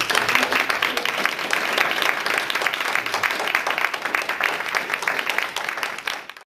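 Audience applauding, many hands clapping steadily; the applause cuts off abruptly near the end.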